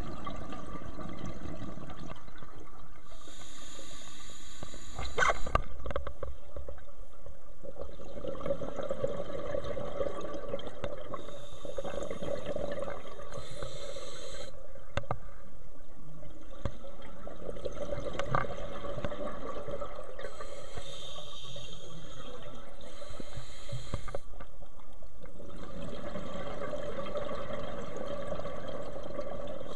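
Scuba diver breathing through a regulator, recorded underwater: bursts of hissing every few seconds with bubbling and water noise between them. One knock about five seconds in.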